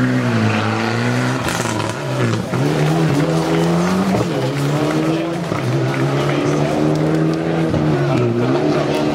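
Mitsubishi Lancer Evolution X rally car's turbocharged four-cylinder engine driven hard through tight tarmac turns. Its note dips and climbs again several times as the driver lifts, shifts and gets back on the throttle.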